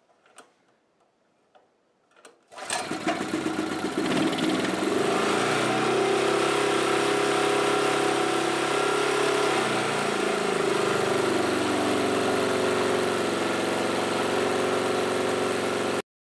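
Petrol-fuelled MC2700 portable generator's small engine starting up: a few faint clicks, then it catches about two and a half seconds in and settles into a steady run at speed. The sound cuts off suddenly near the end.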